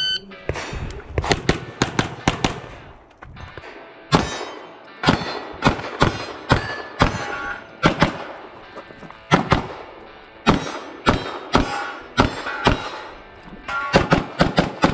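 A shot timer beeps once, then a pistol fires many rapid shots in quick pairs and strings, with short pauses between the bursts.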